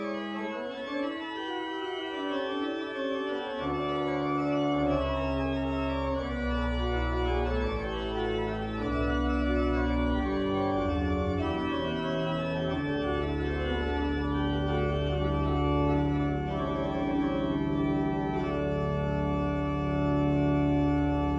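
Church organ played from a three-manual console: full sustained chords, with deep pedal bass notes coming in about four seconds in and held beneath.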